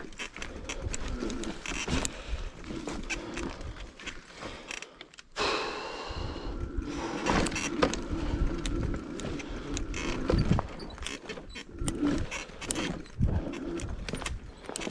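Bicycle ridden over a rough off-road trail: a continuous rattle and clatter of frame, chain and tyres over bumps and roots. About five seconds in the rattle briefly drops, then a high squeal lasts around a second.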